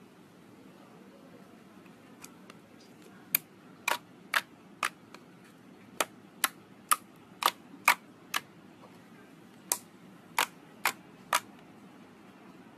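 Slime being pressed and squeezed, trapped air popping out of it in a string of sharp clicking pops, about a dozen of them irregularly spaced over eight seconds.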